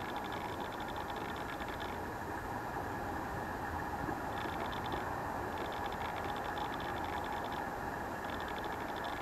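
Steady wind noise on a faulty camera microphone. Over it, a high, fast crackling buzz comes and goes in stretches of one to two seconds.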